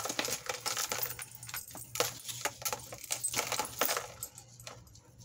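Tangled metal costume jewelry clinking and jangling as it is handled and pulled apart, a quick run of small metallic clicks that thins out near the end.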